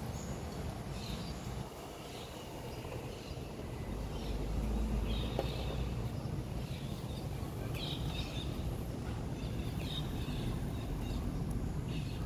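Outdoor background noise: a steady low rumble that swells for a couple of seconds near the middle, with short faint bird chirps scattered throughout.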